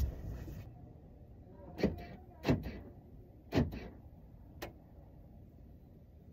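A thud, then four sharp knocks inside a pickup truck's cab, most of a second apart, the last one fainter.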